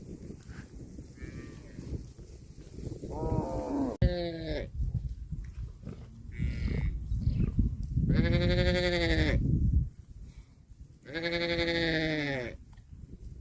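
A young farm animal calling four times in a high, bleating voice: two short calls in the first half, then two long calls of about two seconds each. A low rumble runs underneath until the last of the long calls.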